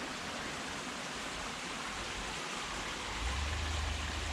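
Steady rushing of a mountain stream. A low rumble joins about three seconds in.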